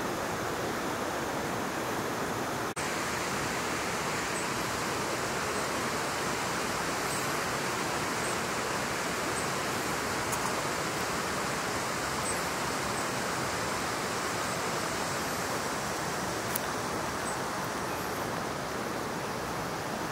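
Steady rushing of a river, with faint high chirps about once a second. The sound drops out for an instant about three seconds in.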